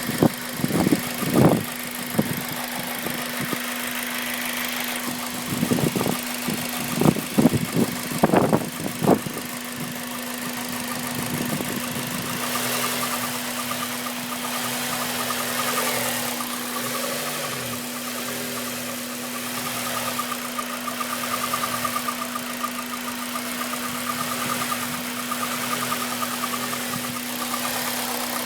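Honda Civic Type R EP3 four-cylinder engine running warm with a rattle, which the owner traced to a failing timing chain tensioner. Several loud sharp knocks come in the first nine seconds, and from about twelve seconds in a steady pulsing rattle comes up over the engine's tone.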